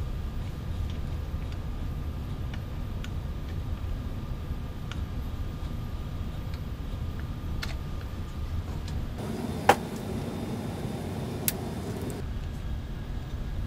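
Small metallic clicks and ticks of parts and hand tools being worked on a 3D printer's bed-frame bracket, over a steady low rumble. Two sharper clicks come about two-thirds of the way through, the first the loudest.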